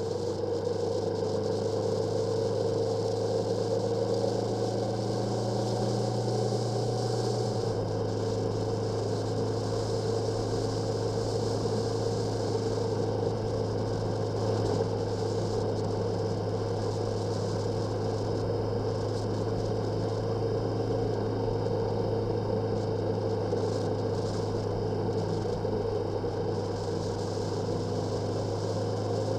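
Motorcycle engine running steadily while riding, mixed with wind and road noise, with a slight drop in the engine note about seven seconds in.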